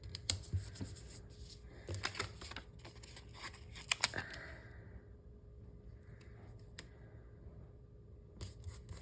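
Paper stickers and planner pages being handled: scattered light clicks, taps and brief rustles, coming in small clusters about two, four and eight and a half seconds in.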